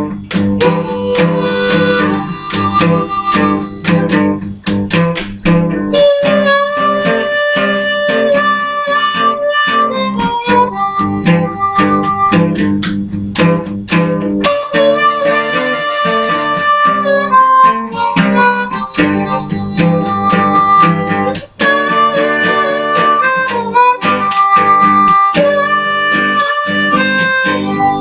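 Blues music: harmonica playing over acoustic guitar.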